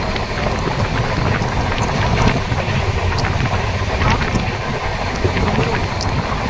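Moving passenger train running along the track: a steady low rumble with scattered clicks and rattles, and wind buffeting the microphone.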